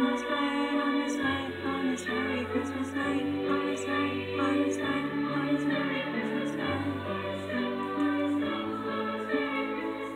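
Choral music: a choir singing over held bass notes that change every two seconds or so.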